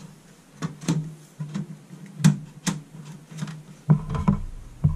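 Plastic front cover of a computer case being fitted and pressed into place: a string of sharp clicks and knocks, two strong ones about two seconds in and a cluster near the end, over a steady low hum.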